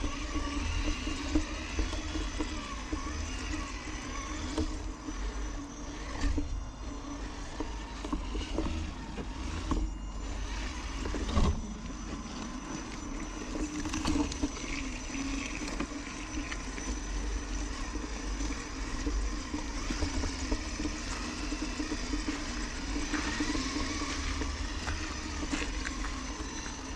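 Traxxas TRX-4 RC crawler's electric motor and geared drivetrain running steadily, heard from a camera on the trailer it tows, with tyres crunching over gravel and mud and scattered knocks from the wheels and trailer, one louder knock partway through.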